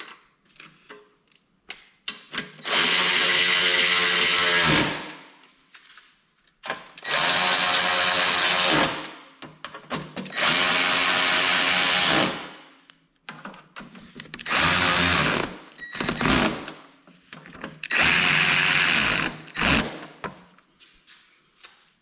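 Troy-Bilt Squall 2100 snowblower's electric starter cranking the engine in seven bursts, the first three about two seconds each and the later ones shorter, each winding down as it is released; the engine does not catch.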